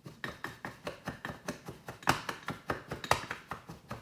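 Rapid, even tapping on a hard surface, about five or six taps a second, with louder knocks about two and three seconds in; it stops suddenly at the end.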